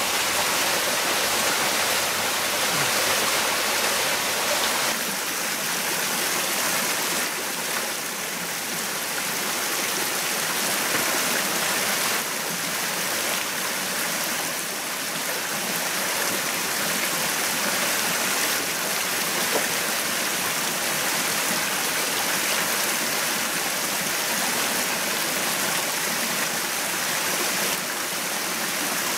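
Forest stream rushing steadily over rocks.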